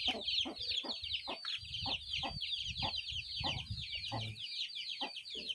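Chicks peeping continuously, a rapid run of high falling notes several times a second. Under the peeping, a knife strikes and scrapes against a brick again and again as a frog is cut on it.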